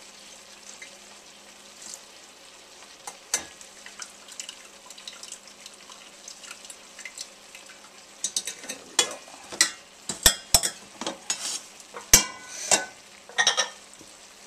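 Kitchen background with a faint steady hum and occasional light clicks. From about eight seconds in comes a quick run of sharp clatters: metal utensils knocking against a pan and dishes while cooked noodles are handled.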